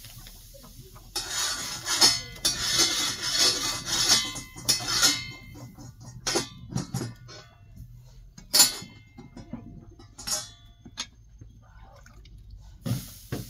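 A metal blade scraping across a hot iron griddle set over a wood fire, a rasping scrape for a few seconds, followed by a few separate sharp metallic clinks and taps.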